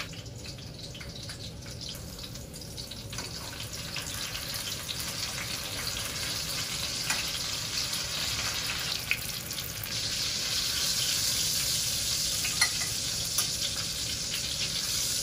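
Breaded pork schnitzel sizzling as it fries in olive oil in a pan, the sizzle growing louder about two-thirds of the way through. A fork clicks against the pan a few times.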